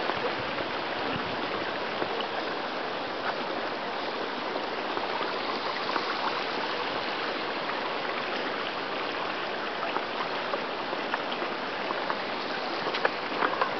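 Steady rushing and trickling of running water, like a small stream.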